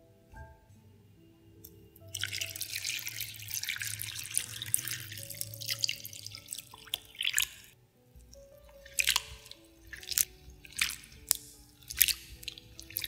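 A stream of water pours and splashes into a glass bowl of raw potato sticks from about two seconds in to about six seconds. After that a hand stirs the sticks in the water, giving a series of separate splashes and sloshes. Soft background music plays under it.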